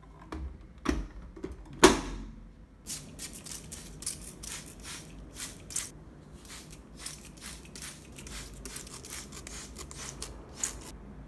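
Two knocks near the start, the louder one about two seconds in. Then a hand-held plastic spray bottle misting water onto houseplants, its trigger pumped in quick, uneven squirts, about three a second, until near the end.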